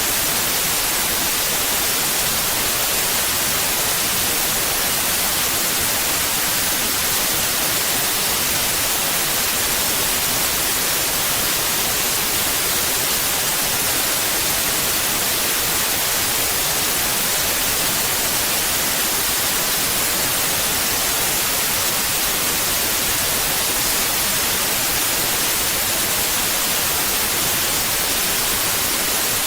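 Steady, unchanging white noise: an even hiss across the whole range, brightest in the highs, with no tones or breaks.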